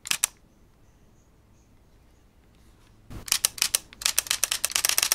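Mirrorless camera with a 15–45 mm kit lens firing its shutter: a couple of quick clicks at the start, then after about three seconds a rapid burst of shutter clicks that speeds up to about ten a second.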